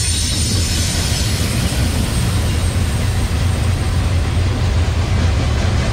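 Covered hopper cars of a freight train rolling past close by, with a steady, unbroken rumble of steel wheels on the rails.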